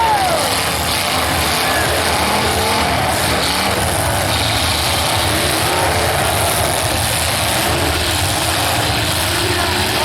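Demolition derby car engines running and revving, a loud, steady wash of engine noise with brief rises and falls in pitch.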